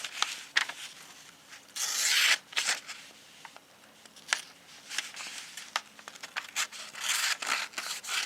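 Cleaver-style blade of an inexpensive folding knife slicing through paper: several short, scratchy strokes, the loudest about two seconds in, with small clicks and rustles of the paper between them. The cut is not the smoothest, from an edge that needs a good sharpening.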